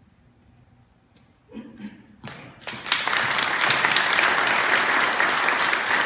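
After a brief hush, a few scattered claps start about two seconds in, and the small congregation breaks into steady applause that carries on.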